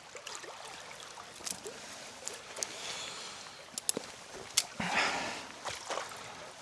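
River water running steadily, with several sharp clicks and taps and a brief splash about five seconds in as a freshly landed trout is handled at the water's edge.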